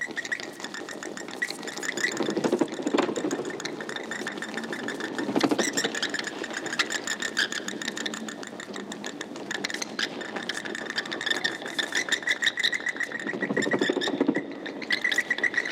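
Bats squeaking and chittering in a fast, rattling stream of clicks and high chirps, with a low fluttering rustle that swells a few times.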